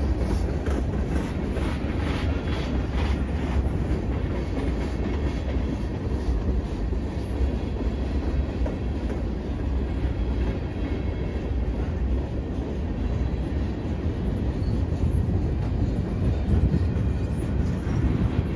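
A freight train of covered hoppers and tank cars rolling steadily past, a continuous rumble and clatter of steel wheels on rail.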